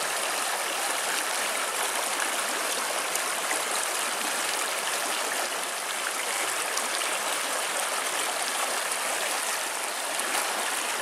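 A shallow creek running over rocks: a steady, even rush of water.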